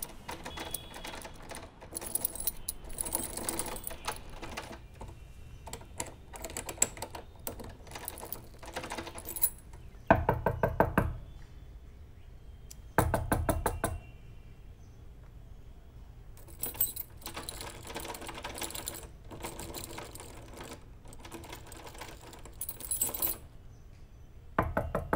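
A run of small clicks and taps, with two louder spells of rapid knocking about ten and thirteen seconds in.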